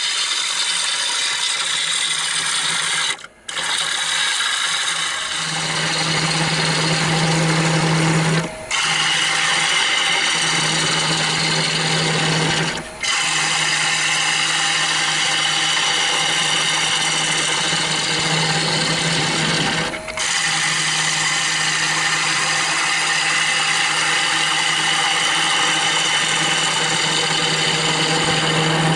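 Bowl gouge cutting into a spinning walnut bowl on a wood lathe, hollowing out the inside: a steady hiss of wood being cut over the lathe's steady low hum. The sound breaks off sharply for a moment four times.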